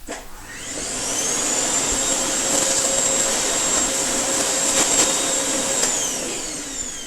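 Vacuum cleaner switched on, its motor whine rising to a steady high pitch over a rush of air. It is switched off about six seconds in, and the whine falls as the motor winds down.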